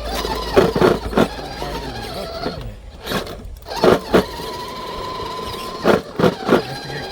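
RC rock-crawler truck's motor and drivetrain whining steadily as it crawls over rock, with several short loud bursts in three clusters.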